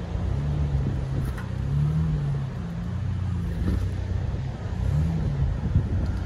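Toyota Land Cruiser 4WD engine running at low speed as the vehicle crawls over a rocky dirt track. The revs rise and fall repeatedly, with a steady low rumble underneath.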